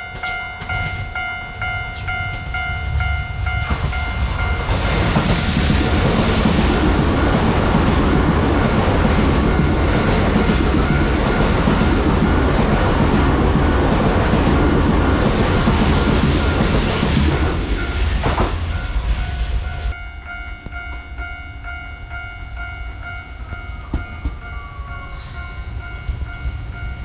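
Express train passing through the station at speed, a loud rumble and rattle of wheels on rail that swells in about 4 s in and dies away about 20 s in. Before and after it a level-crossing bell rings steadily, about two strokes a second.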